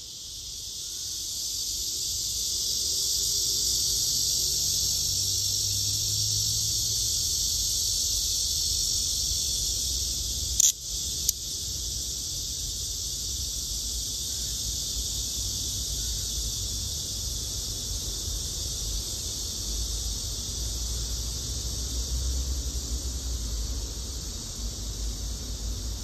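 Male black cicada (Cryptotympana atrata) calling while held in the hand: a loud, steady, high buzz that swells over the first few seconds and then holds. This is the call a male gives when caught. Two short clicks come about ten seconds in.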